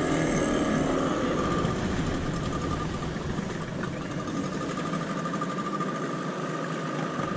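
Boat engine running steadily, a continuous motor hum with a thin steady whine over it.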